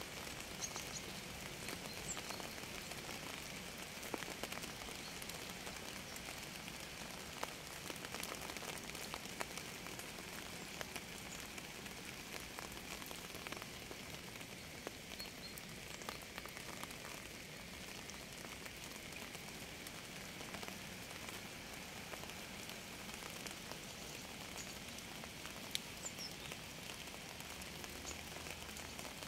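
Steady rain falling, an even hiss with scattered louder single drops ticking throughout.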